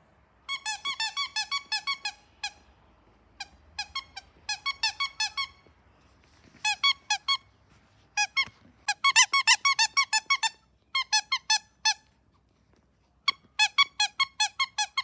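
The squeaker inside a plush dog toy, squeezed rapidly again and again: bursts of short, high squeaks, about six a second, with pauses between the bursts.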